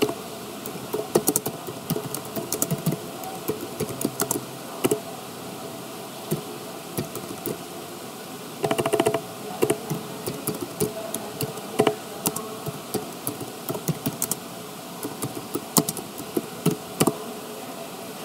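Typing on a computer keyboard: irregular keystroke clicks in short runs with small gaps, as a web search query is typed.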